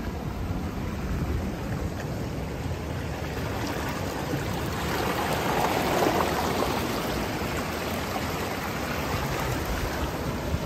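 Ocean surf washing up over sand and swirling around rocks at the water's edge. It is a steady rush of water that swells into a louder surge of churning foam about halfway through, then eases.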